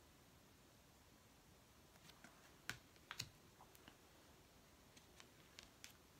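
Faint room tone, then a scatter of light clicks and taps as oracle cards are handled, the two sharpest near the middle.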